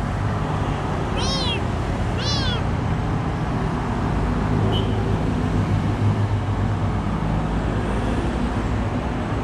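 A small cat meowing twice, high-pitched short calls about a second apart near the start, over the steady hum of street traffic.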